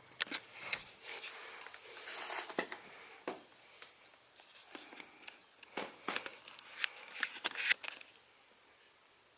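Handling noise: a run of sharp clicks and short rustles in a small room, stopping about eight seconds in.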